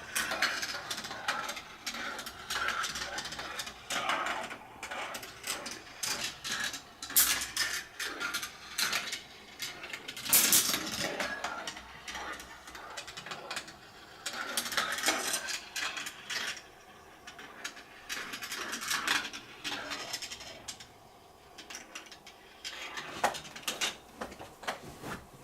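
Marbles rolling and clattering along a GraviTrax plastic marble-run track, with a steady rolling rumble broken by many sharp clicks and knocks as they drop and hit track pieces. It thins out near the end.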